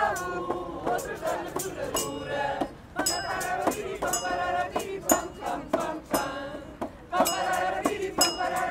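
A mixed group of voices singing janeiras, Portuguese New Year carols, together, over a steady beat of ringing metallic clinks from hand percussion.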